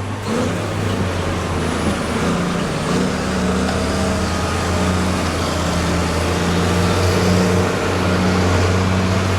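A motor vehicle's engine running steadily with a low drone, swelling slightly in the second half.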